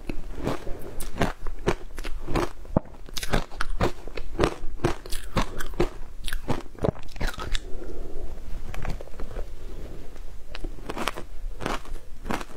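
Frozen matcha ice crunched and chewed close to the mouth, in a fast, irregular run of sharp crunches. The crunches thin to softer chewing for a few seconds past the middle, then pick up again near the end.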